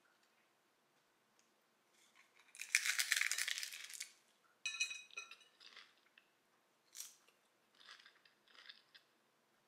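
Biting into a hard, crunchy nacho taco shell: one loud crunch about two and a half seconds in, lasting over a second. Then a sharp crackle and a few smaller crunches as she chews.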